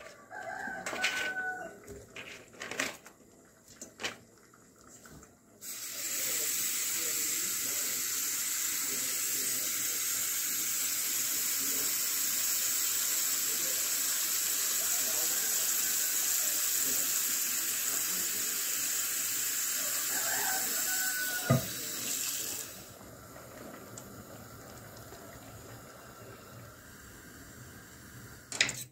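Kitchen tap running steadily into a steel pot of cauliflower florets for about seventeen seconds, then shut off; a short squeal falling in pitch comes just before it stops. A few knocks come before the water starts.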